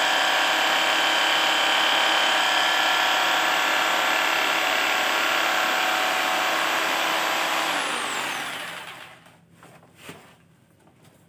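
Electric jigsaw running steadily as it cuts acrylic sheet. It is switched off about eight seconds in, and its motor whine falls away as it winds down; there is a faint click a couple of seconds later.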